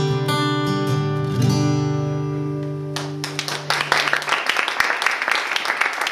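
Acoustic guitar ending a song with a strummed chord that rings out and fades. About three seconds in, audience applause and clapping take over.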